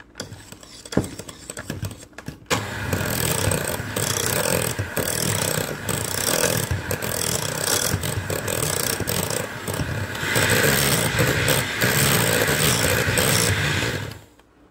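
Electric hand mixer switching on about two and a half seconds in and running steadily, its beaters whipping whipped cream into a fruit pudding cream in a bowl; it runs louder for a few seconds near the end, then stops.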